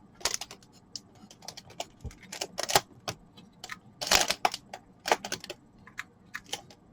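Irregular light clicks and taps of a small plastic USB switch box being handled and turned over, with a few louder knocks about a quarter second in, near the middle, and around four and five seconds in.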